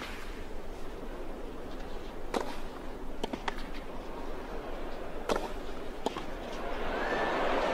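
Tennis rally on a clay court: a handful of sharp racket-on-ball strikes, a second or two apart, over a steady crowd hum. Crowd noise swells near the end.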